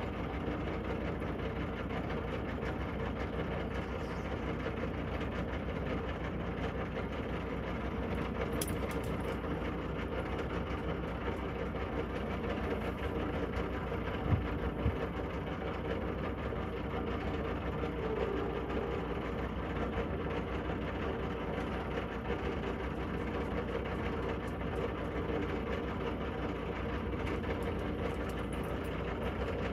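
A narrowboat's diesel engine running steadily at low speed, a continuous low drone with a hum. About halfway through, two brief low thumps stand out over it.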